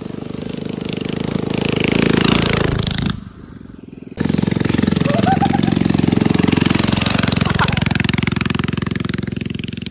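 Mini bike's small engine running hard, with a rapid pulsing exhaust note that builds, drops away for about a second, then comes back suddenly.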